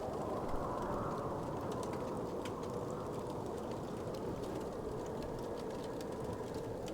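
Wood fire crackling, with scattered small, sharp pops over a steady low rumble.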